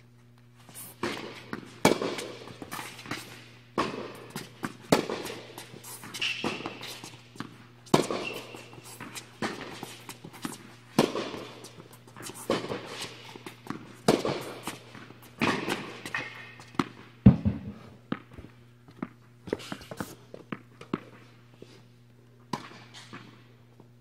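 Tennis ball hit back and forth in a rally on an indoor court: sharp racket strikes and ball bounces, about one every second or so, echoing in the large hall, with a few short squeaks. The hits thin out near the end, over a steady low hum.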